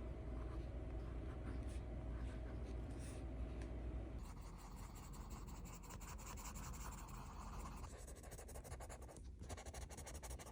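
Colour pencil scratching faintly across sketchbook paper in quick, short strokes, denser from about four seconds in.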